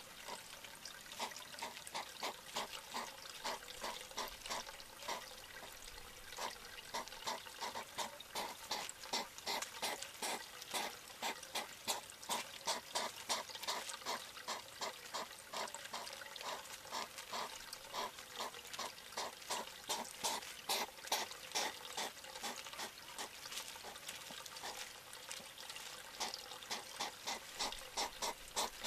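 European hedgehog huffing during courtship: a rhythmic run of short puffs, about two or three a second, louder through the middle stretch.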